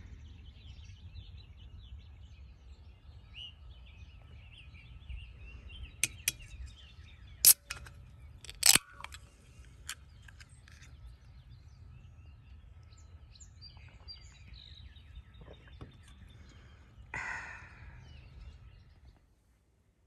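Outdoor ambience: birds chirping over a low steady rumble of wind. A few sharp, loud clicks a little past the middle.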